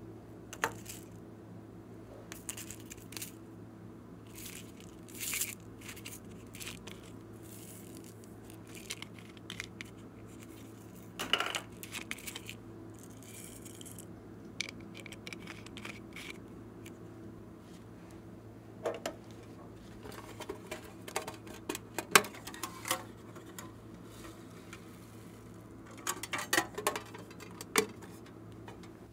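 Scattered light clicks, taps and short rustles of sprinkles and glitter being shaken from small plastic bottles into a glass baking dish, over a faint steady hum. A cluster of clicks near the end comes as a small tin box is handled.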